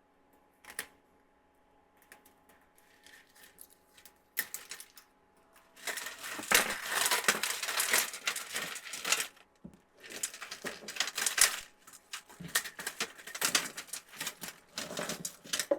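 Strands of LED icicle lights rattling and clicking as they are handled and spread out on a workbench, with rustling of the wires. It starts with a few faint clicks, then turns to dense clattering from about six seconds in, with a short lull near ten seconds.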